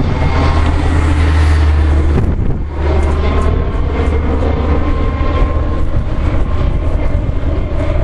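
Helicopter flying overhead, a loud steady low drone with a faint whine above it, easing briefly about two and a half seconds in.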